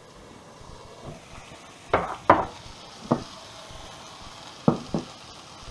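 Spice-rubbed chicken breast pieces frying in oil in a pan with a faint steady sizzle. Five short, sharp knocks of kitchenware cut through it: a pair about two seconds in, one a second later, and another close pair near the end.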